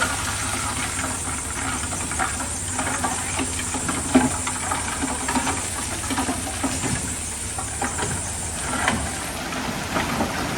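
Heavy diesel earthmoving machinery running steadily at low revs, with scattered knocks and clatter of stone. A steady high hiss runs over it and stops about nine seconds in.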